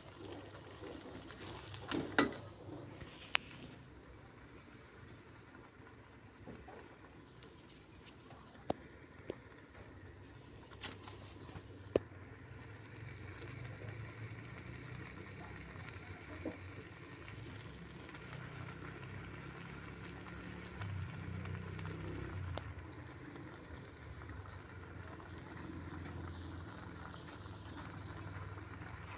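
A metal spatula clicks a few times against a wok of shrimp cooking in a little water, over a low steady rumble that grows a little stronger about halfway through. A faint short high chirp repeats about once a second.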